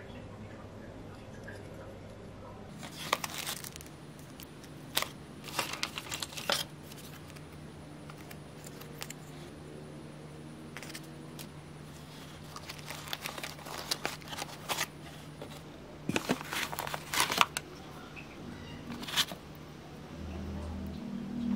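Small plastic parts and packaging handled by hand: scattered clicks and short crinkling rustles in several clusters, over a faint steady low hum.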